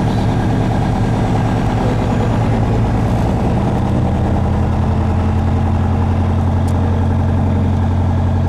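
Vehicle engine running at low speed, heard from inside the cabin as it moves slowly; the hum settles into an even, steady drone about three and a half seconds in.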